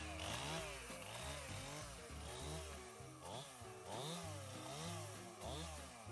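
Chainsaw cutting, its pitch rising and falling over and over as the chain loads up in the wood and frees again.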